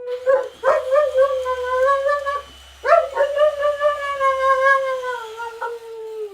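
A dog howling in two long, drawn-out howls, the second gliding slowly down in pitch toward the end.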